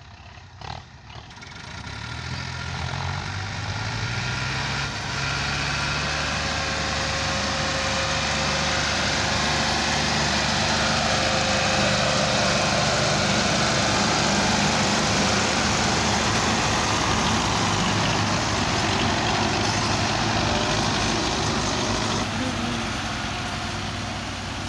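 Diesel tractor engines of a Massey Ferguson 260 and a Belarus, hitched in tandem, working hard under heavy load to pull a trolley loaded with sugarcane. The engine noise builds over the first few seconds, then holds steady.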